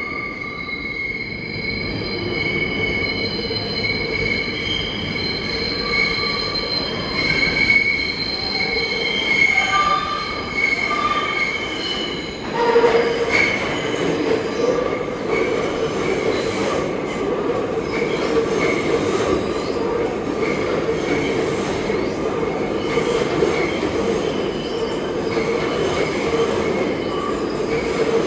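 New York City subway train on the BMT Broadway Line: high-pitched wheel squeal with several steady tones for the first half, then from about halfway a louder, heavier rumble of the train's wheels on the rails.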